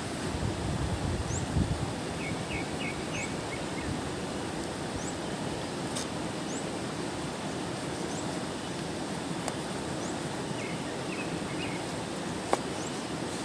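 Outdoor ambience: a steady hiss with birds calling, a short high rising chirp repeating about once a second and bursts of quick chirping notes twice, plus a few sharp clicks.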